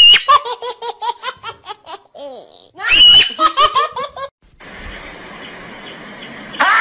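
High-pitched squealing giggles in two bouts, each a short shrill squeal followed by a rapid run of laughter pulses. Then a steady hiss, and right at the end a loud shrill marmot call begins suddenly.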